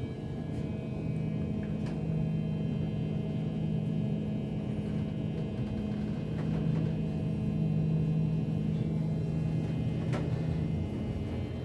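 Hotel passenger lift travelling upward, heard from inside the car: a steady low hum with faint whining tones. A click comes about ten seconds in, and the lowest hum stops shortly after as the lift arrives at its floor.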